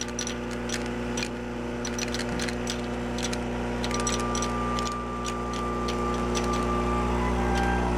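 Bench-top tablet counter running with a steady machine hum, while softgel capsules drop down its chute and click rapidly and irregularly into a glass jar; the clicks thin out in the second half.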